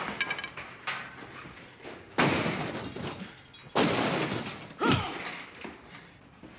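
Two loud crashes about a second and a half apart, each ringing out and dying away over most of a second, as in a scuffle. A short cry falling sharply in pitch follows.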